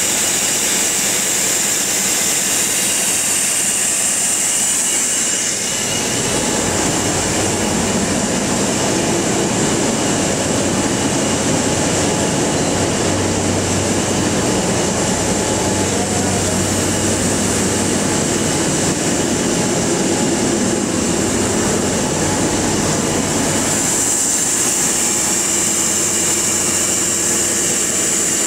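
Loud, steady industrial machinery noise from a waste-gasification power plant. A gas engine-generator set runs with a strong high hiss for the first several seconds and again near the end. In between, a rougher, deeper rumble with a steady low hum from other plant machinery takes over.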